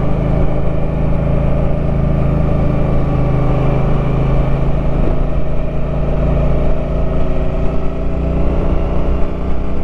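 Suzuki Boulevard M50 motorcycle's 805 cc V-twin engine running steadily under way on an uphill climb, its note holding nearly even throughout.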